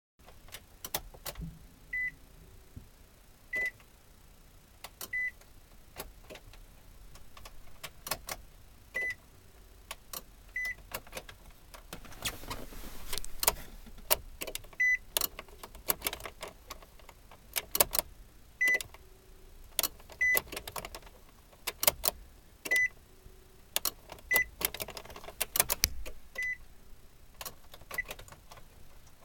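2009 Nissan Cube's relays clicking each time the ignition key is turned, with no cranking, mixed with short high-pitched beeps. The owner takes the clicks for normal relay clicks, and thinks something is keeping current from reaching the starter solenoid.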